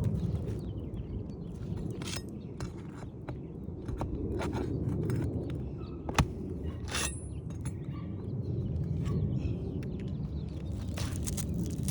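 Scattered clicks, snaps and scrapes of an asphalt shingle being pried loose from a stapled roof, with the staples breaking as they come out. One sharp click comes about six seconds in. A low steady rumble runs underneath.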